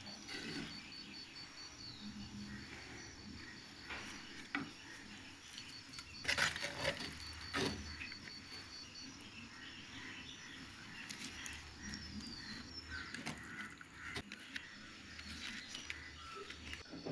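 Wooden spoon scraping and knocking against clay cooking pots as food is served, with a few sharper knocks about six to eight seconds in. A faint, steady high chirping pulses in the background.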